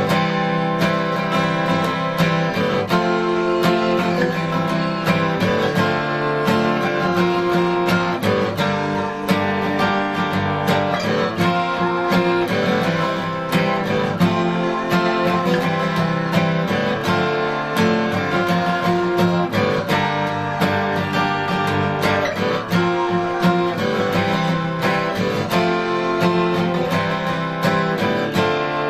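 Martin dreadnought acoustic guitar strummed in a steady rhythm, the chords changing every second or two.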